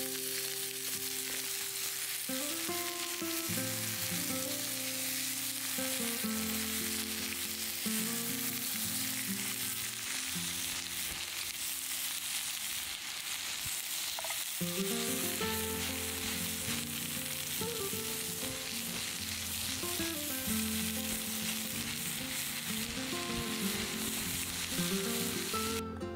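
Pork belly, kimchi and garlic sizzling as they fry in a pan: a steady frying hiss. Soft melodic background music plays underneath, and the sizzling cuts off just before the end.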